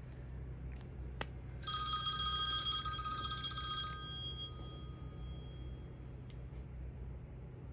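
A bell rings in a rapid trill for about two seconds, then its tone rings on and fades away. A single click comes just before it.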